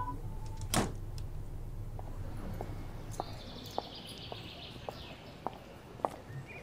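Footsteps on a concrete path, about one every 0.6 s, over a faint steady outdoor background noise. A single short whoosh comes a little under a second in, and a bird twitters high for about two seconds in the middle.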